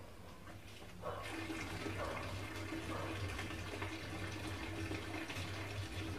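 Steady rushing background noise with a low hum under it. It is fainter for about the first second, then holds steady.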